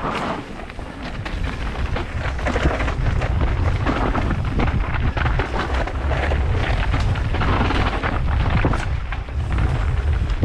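Wind buffeting a helmet-mounted camera's microphone as a mountain bike descends a dry dirt singletrack, with steady rumble and many rapid clicks and knocks from the tyres and rattling bike on the rough trail.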